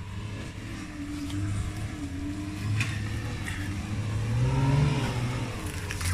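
Off-road 4x4's engine running, revving up and easing back down about four and a half seconds in, with a few light knocks.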